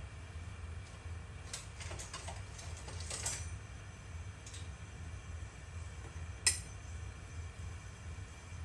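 A low steady hum with scattered faint ticks and one sharper click about six and a half seconds in, as cooking oil heats in a granite-coated nonstick wok.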